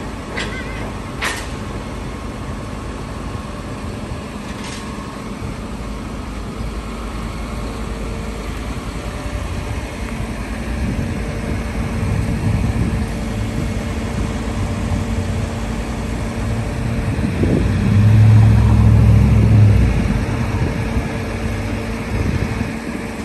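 Tilt-tray tow truck's engine running steadily amid city traffic noise. A louder low rumble swells about three-quarters of the way through and then fades.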